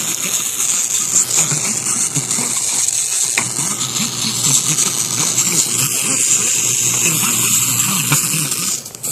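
A dead speaker wired to a stereo with the volume up, putting out a steady hiss-like noise instead of clean sound. It cuts in and out, and drops briefly near the end.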